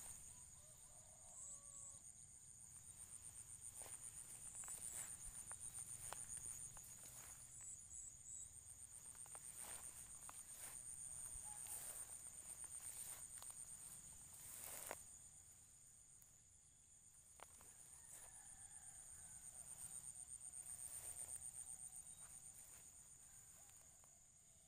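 Night insects, crickets, trilling in a steady, fast-pulsing high-pitched chorus, faint overall, with scattered soft clicks and one sharper click about fifteen seconds in.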